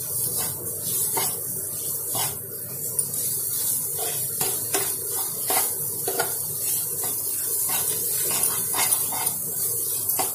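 Metal spatula scraping and knocking against a nonstick frying pan as potatoes are stirred and mashed. Irregular taps come about once or twice a second over a steady hiss of frying.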